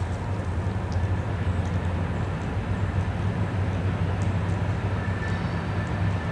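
CSX coal train's diesel locomotives running with a steady low rumble.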